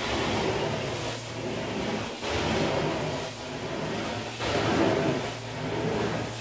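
Carpet-cleaning extraction wand sucking air and water through its hose, the rush swelling with each stroke about every two seconds, over a steady low hum.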